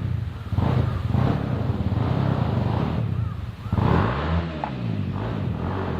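Motorcycle engine running, with one rev that rises and falls about four seconds in.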